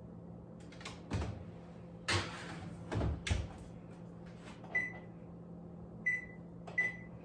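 Oven rack and door clattering with a few knocks as a baking dish goes into the oven and the door shuts, then three short electronic beeps as the 20-minute timer is set.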